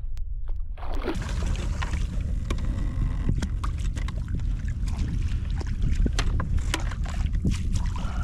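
Wind rumbling on the microphone over a run of short sharp splashes and clicks as a hooked fish thrashes at the surface beside a kayak, with the landing net going into the water near the end.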